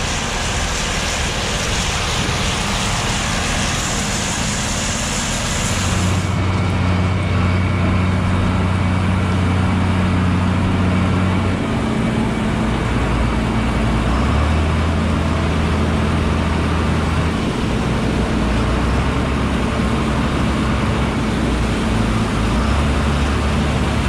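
Tractor and John Deere 4420 combine running steadily through a cornfield, a low machine drone that steps in pitch several times. About six seconds in, a lighter, hissier steady noise gives way to this heavier drone.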